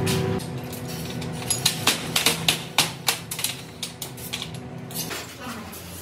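Metal brake shoes clinking and clattering as they are handled and stacked: a quick, uneven run of sharp clicks over a steady machine hum.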